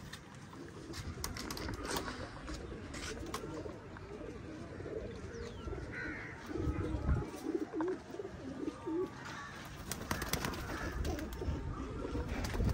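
Domestic pigeons cooing, loudest around the middle, with scattered short clicks and knocks among them.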